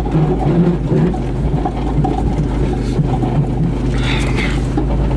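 Old Toyota car's engine running steadily as the car drives, heard from inside the cabin, with a brief hiss about four seconds in.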